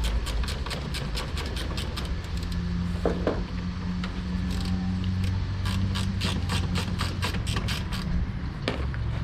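Ratcheting 10 mm wrench clicking steadily, about four clicks a second, as it turns a headlamp mounting bolt; the clicking pauses in the middle and resumes. A steady low hum runs underneath.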